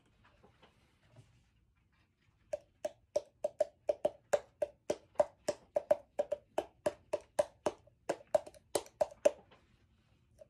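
Thick pancake batter pouring from a plastic measuring jug into a zip-top plastic bag: a quick run of soft plops, about three or four a second, starting a couple of seconds in.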